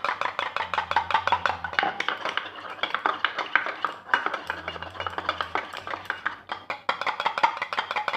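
A spoon whipping instant coffee for dalgona coffee in a steel-lined mug: fast, steady clicking of metal on metal, several strokes a second.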